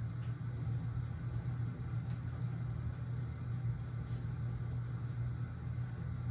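Hampton Bay Jericho I 52-inch ceiling fan running at speed, a steady low hum.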